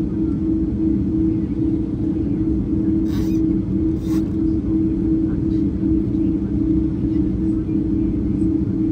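Airbus A330 airliner's steady drone of engines and airflow, a constant low hum holding two steady tones. Two brief clicks come about three and four seconds in.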